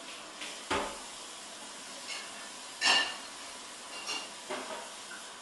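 A few scattered clinks and knocks of kitchenware over a faint steady hiss; the loudest, about three seconds in, rings briefly.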